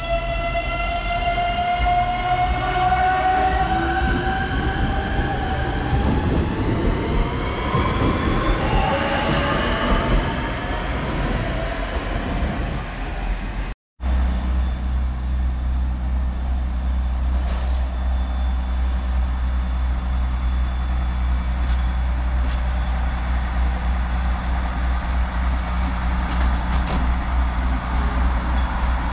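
Siemens Desiro electric multiple unit pulling away, its traction drive whining in several tones that rise slowly in pitch for about ten seconds. After a sudden cut, the SŽ 711 'Mercedes' diesel multiple unit's engine runs with a steady low hum, with a few faint clicks.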